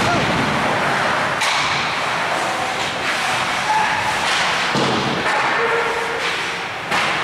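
Ice hockey play in a rink: about five sharp knocks and thuds from puck, sticks and the boards over a steady noisy background.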